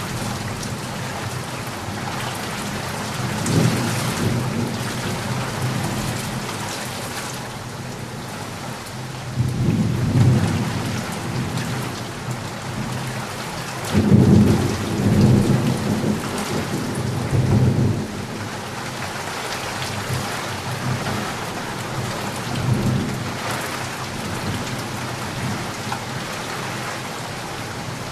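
Steady heavy rain falling, with rolling thunder rumbling in several times; the longest and loudest rumble comes about halfway through.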